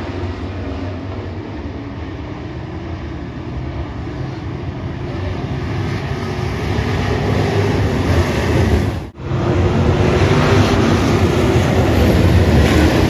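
A pack of dirt-track Super Truck race engines running together as the field circles the track, growing louder about halfway through. A brief dropout about two-thirds of the way in.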